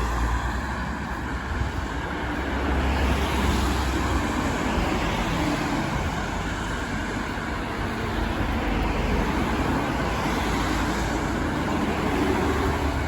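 Steady outdoor city noise: a continuous hiss with a low rumble that swells and eases, like traffic or wind.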